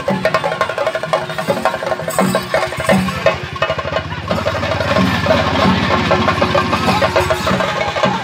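Chenda drums beaten with sticks by an ensemble of drummers, playing a fast, dense rhythm of rapid strokes.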